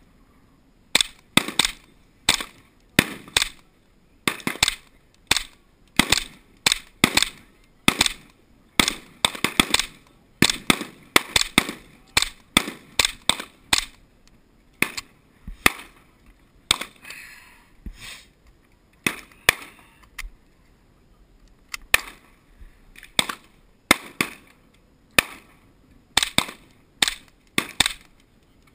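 A .22 semi-automatic rifle firing a rapid string of sharp shots, mostly one or two a second, with a pause of a few seconds around the middle.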